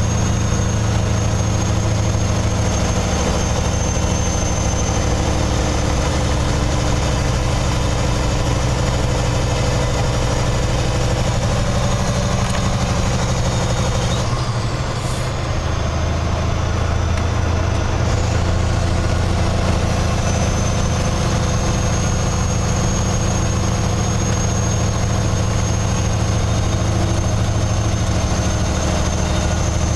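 Kenworth truck's diesel engine running steadily in the cab while the empty tanker comes down a steep grade. About halfway through, the engine note shifts and the level dips briefly. A high steady whine over the engine fades out near the middle and comes back a few seconds later.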